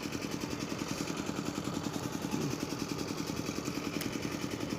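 A small engine running steadily at idle, with an even, rapid pulse.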